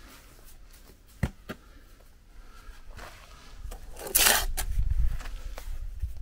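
Steel trowel scraping wet mortar along the top of a concrete block course, with a single sharp knock about a second in and a louder half-second scrape just after four seconds in.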